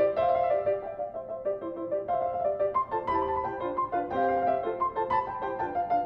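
Background music played on piano: a melody of short notes changing several times a second over lower chords.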